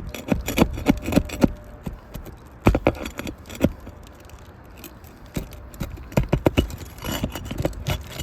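Steel flat bar prying roofing nails out from under asphalt shingles: clusters of sharp metal clicks, taps and scrapes, with short pauses between.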